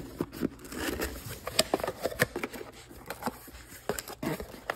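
A cardboard box being opened and handled by hand, with a series of short cardboard clicks, taps and scrapes as the lid is lifted and the contents are shifted.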